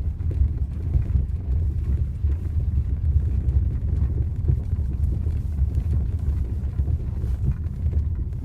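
Lada Priora's rear suspension and road noise heard inside the moving car's cabin: a steady low rumble with faint irregular knocks. This is the rear-right 'gurgling' knock the owner is chasing, still there after new rear struts, bump stops and silent blocks.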